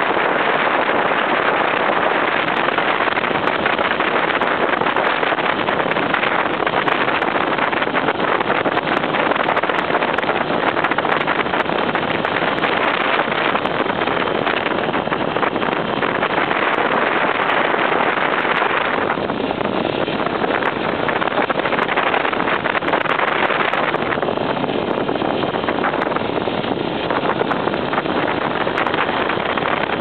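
Off-road motorcycle engine running as it climbs a dirt track, largely buried under steady wind buffeting on the microphone.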